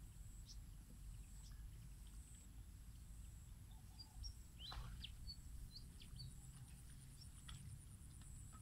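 Near silence outdoors: a faint low rumble with a few short, high bird chirps scattered through it, and a faint steady high-pitched tone underneath.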